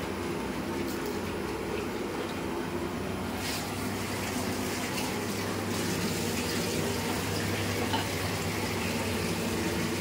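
Tap water running into a kitchen sink during washing up, over a steady low hum, with a few light knocks in the middle.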